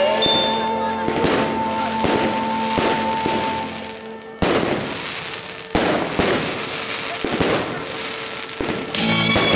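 Fireworks crackling and banging over background music. The music drops away about four seconds in, several sharp separate bangs follow, and music comes in again near the end.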